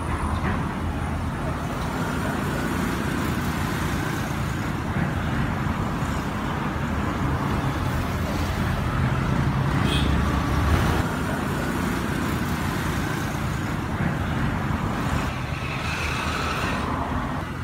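Steady road traffic noise, a low rumble of passing vehicles that swells louder about ten seconds in.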